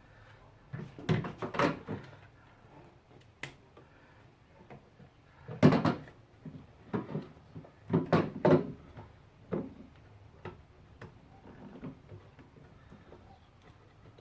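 Scattered clicks and knocks of hard plastic being handled: a new coolant overflow tank and its low-coolant level sensor being fitted. They come in short clusters, the loudest about six seconds in and again around eight seconds.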